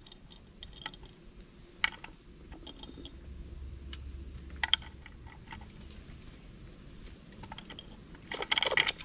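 Scattered sharp clicks and taps of squirrels clambering on a wooden feeder and handling peanuts in the shell, with a denser burst of scrabbling near the end.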